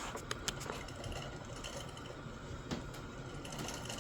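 A few faint, light clicks from small revolver parts being handled during reassembly, over a steady low hum.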